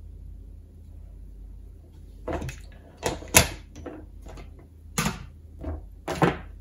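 Hand tools clicking and knocking on a wooden workbench: an automatic wire stripper working a cable end, and side cutters being handled and set down. About five sharp clicks, starting about two seconds in, the loudest just past three seconds.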